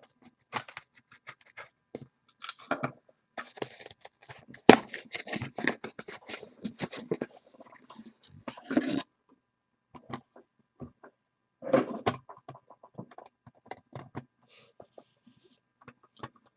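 Packaging around PSA graded-card slabs being cut open and handled: irregular rustling, scraping and clicks of plastic and cardboard, with one sharp click about five seconds in.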